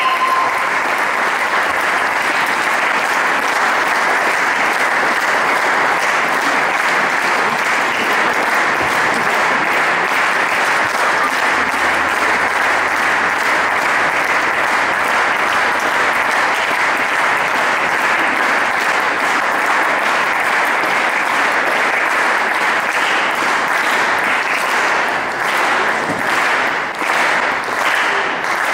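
Audience applauding steadily, then thinning out near the end into scattered separate claps.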